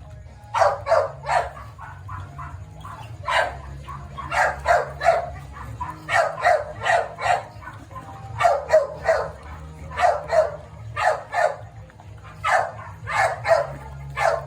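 A dog barking repeatedly in quick bursts of two to four barks, each burst a second or two after the last, over a steady low hum.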